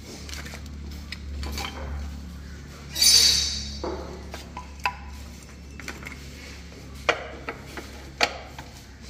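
Wooden trim being handled and set against a miter saw's fence. There is a short scraping rush about three seconds in, then a few sharp wooden knocks, over a low steady hum.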